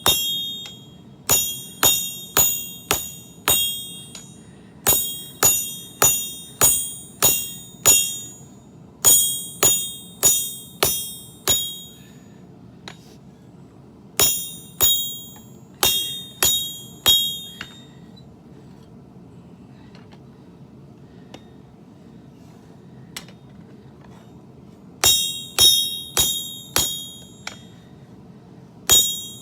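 Hand hammer forging steel on an anvil: groups of four to six ringing blows, about two a second, separated by short pauses and one longer break of several seconds past the middle.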